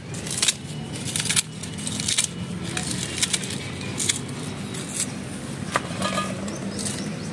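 Scissors snipping through banana stem and leaf, crisp irregular cuts about once a second.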